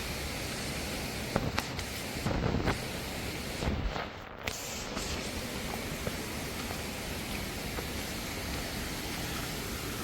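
Waterfall rushing steadily, a constant noise of falling water, with a few brief knocks and rustles around two and four seconds in.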